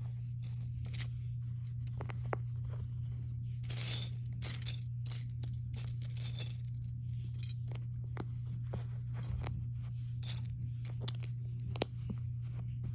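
Small plastic Lego pieces clicking and clattering as they are picked through by hand, with brief rustles around four and six seconds in. A steady low hum runs underneath.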